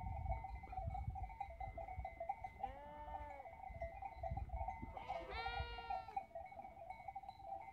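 Sheep bleating twice: a lower call about three seconds in, then a higher, longer call about five seconds in, over a low rumble.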